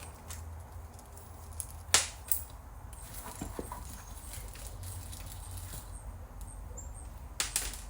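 Scattered light clicks and knocks of parts being handled and unscrewed during a VCR teardown, the loudest about two seconds in and another pair near the end, over a steady low hum.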